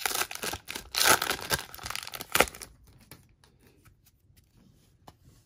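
Foil wrapper of a hockey card pack being torn open and crinkled by hand, loud crackling for about the first two and a half seconds, then dying down to faint rustling as the cards are handled.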